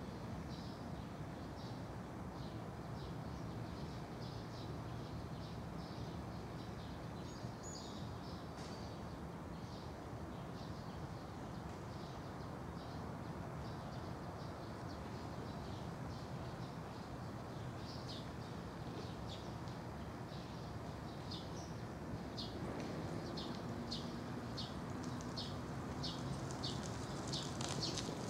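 Small birds chirping in short, high notes over a steady outdoor hum. The chirps come faster, about two a second, over the last few seconds.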